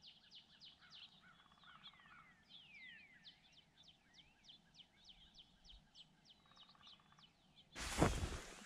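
Small songbirds chirping: quick, repeated high falling notes, several a second, with a few longer falling whistles among them. Near the end, a loud rustling and crunching as the camera is picked up and handled.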